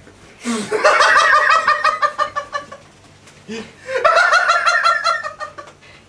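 A man's high-pitched, rapid cackling laugh in two bursts of about two seconds each, each starting with a short rising sound.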